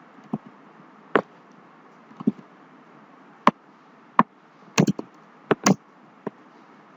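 Computer mouse and keyboard clicks: about ten short, sharp clicks at irregular intervals, some in quick pairs, as code is selected and deleted in an editor.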